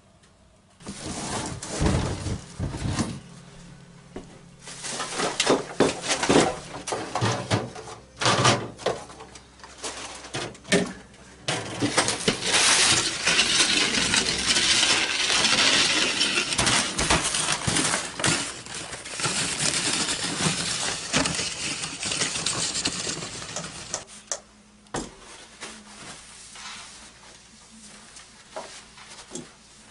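Knocks and clatter of gear and household items being handled and moved, with a steady rushing noise through the middle stretch.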